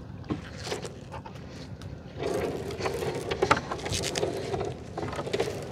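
Gill net being hauled aboard a small boat: scattered knocks and scraping, getting louder and busier about two seconds in.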